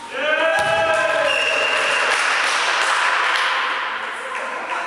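Volleyball players shouting and cheering together at the end of a rally, several voices at once echoing around a large sports hall, with a thud about half a second in. The shout gives way to a mix of cheering and clapping that fades toward the end.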